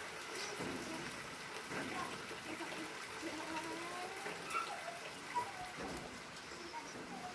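Steady rain falling, an even hiss and patter, with faint distant voices calling now and then.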